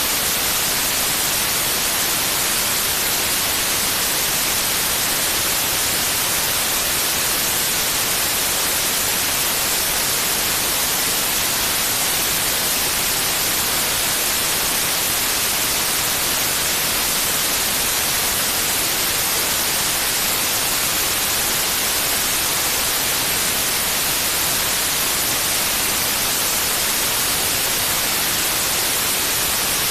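Steady white noise: an even, unchanging hiss, brightest in the high range, with no breaks.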